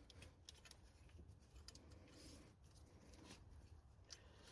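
Near silence with a few faint scattered clicks, from hands handling parts.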